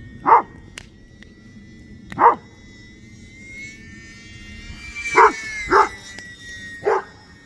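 A dog barking five times: two single barks a couple of seconds apart, then three closer together. Under the barks runs the steady high whine of the UMX Turbo Timber RC plane's electric motor, which rises slightly in pitch about midway.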